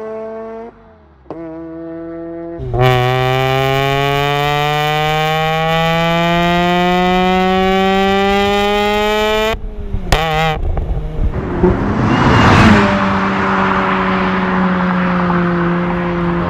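Mazda RX-8's 1.3-litre twin-rotor Wankel engine under acceleration: after a brief lift-off near the start, its pitch rises steadily for about seven seconds and cuts off abruptly at an upshift. A short burst of noise follows, and the engine then settles into a steady, slightly falling tone.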